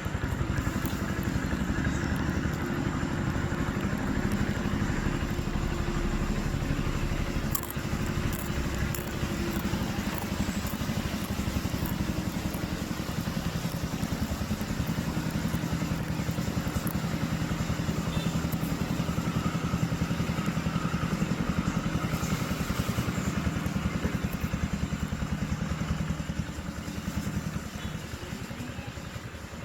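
An engine running steadily at an even pitch, with light clicks and crackle over it. It grows quieter near the end.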